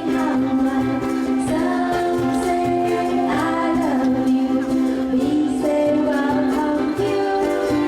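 Ukulele ensemble playing a song with singing voices over it and a steady low beat.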